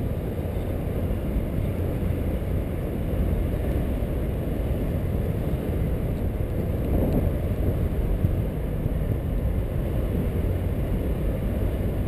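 Steady wind rushing over the camera's microphone as a paraglider pilot climbs on a tow line, a low, even rumble with no breaks.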